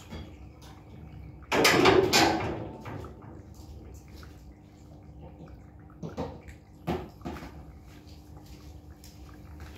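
Cats eating from food bowls, with one loud rustling noise about a second and a half in that lasts about a second, then a few light knocks around six to seven seconds in.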